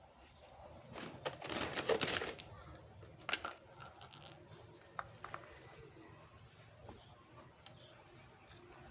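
Handling noises: a rustling, tearing sound for about a second and a half starting a second in, then a few light, sharp clicks and taps spread out afterwards.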